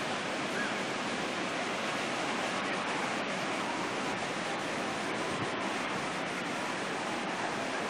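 Steady, even rushing ambience of a seaside resort: distant surf breaking along the beach, with no single sound standing out.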